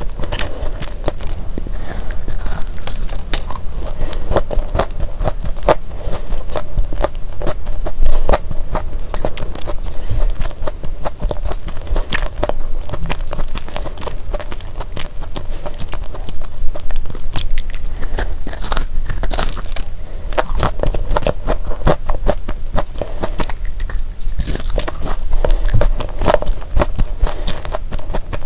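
Close-miked chewing and crunching of a crisp, chocolate-dipped sandwich cookie: a steady run of small crackling crunches and mouth sounds, with a louder crunch about eight seconds in.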